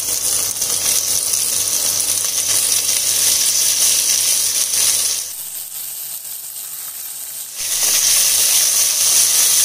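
Chopped beans, carrots and peas tipped into hot oil in an aluminium pressure pan, sizzling with the clatter of pieces landing on the metal, then stirred with a wooden spatula. The sizzle drops away for about two seconds past the middle, then comes back.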